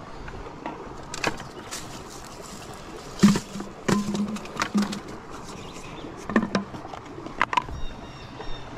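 Footsteps and knocks on loose shale slabs as someone clambers over creek-bank rocks: a dozen or so irregular sharp clicks and clacks of stone against stone and boot against rock.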